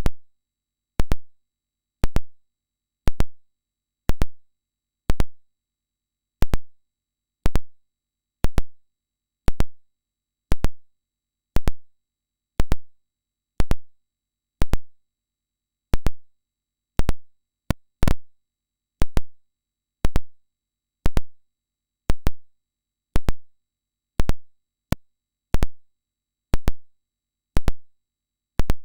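Regular ticks about once a second from a hearing-test tone played in pulses. They are the on-off clicks of a test tone pitched near or beyond the top of human hearing, with no audible tone in between.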